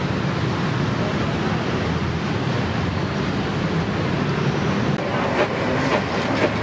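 Steady background din of a busy outdoor market, with a few short sharp clicks near the end.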